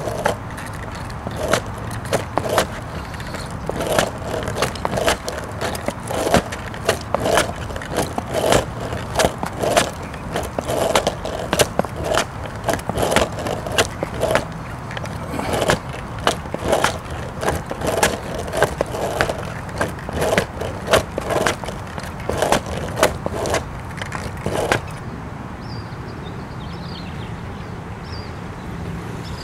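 Sneakers slapping and scuffing on asphalt, with knocks from a skateboard, as the rider pushes off with alternating feet: irregular strikes, one or two a second. About 25 seconds in the strikes stop and a steady low rumble is left.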